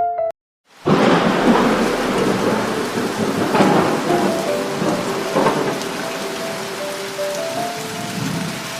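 Heavy rain and thunder of a thunderstorm sound effect, starting suddenly about a second in after a brief silence. Soft piano notes play underneath from the middle on.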